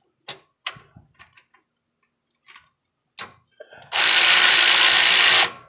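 A few light metallic clicks of parts being handled, then a power tool runs in one loud burst of about a second and a half, driving in the bolt that holds the tailpipe.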